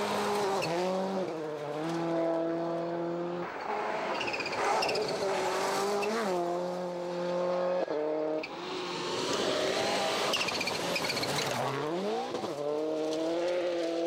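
Subaru Impreza WRC rally car's turbocharged flat-four engine at full throttle on gravel, holding steady high revs that drop and climb abruptly with gear changes, with a sharp break near the middle and a steep rising surge of revs near the end.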